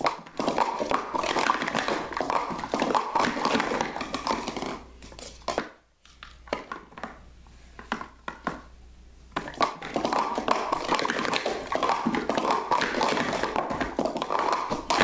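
Plastic sport-stacking cups clattering in rapid strings of taps as they are stacked up and down through a cycle on a mat. One run ends about five seconds in; after a pause with a few single taps, a second run starts near ten seconds.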